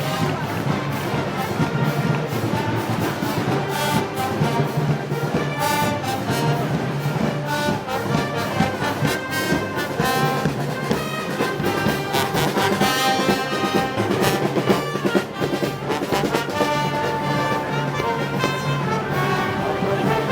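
Brass band playing Moros y Cristianos parade music, trombones and trumpets carrying the tune over steady drum beats.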